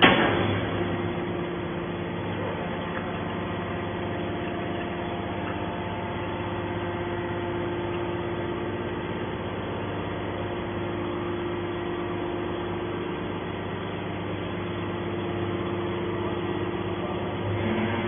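Hydraulic power unit of a Y81/T-4000 scrap metal baler running with a steady hum while the ejector cylinder pushes a compressed scrap bale out of the chamber. A sharp knock comes right at the start.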